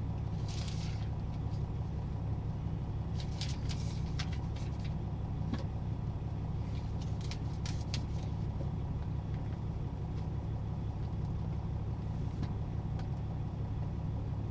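Semi-truck's diesel engine idling steadily, heard from inside the cab, with a few short rustles and clicks of papers being handled a few seconds in and again about halfway.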